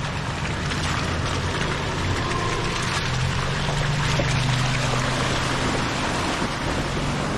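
Off-road SUV's engine running with a steady low drone under a constant rushing hiss, with no clear change in pitch.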